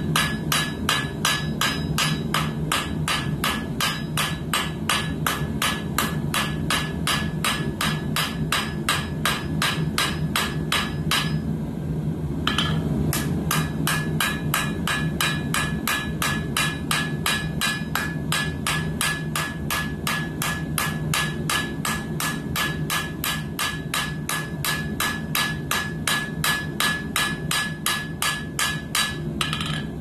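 Hand hammer striking red-hot coil-spring steel on an anvil, forging a knife blade: a steady run of blows at about three a second, each with a ringing note. There is a short break about eleven seconds in and another near the end. A steady low hum runs underneath.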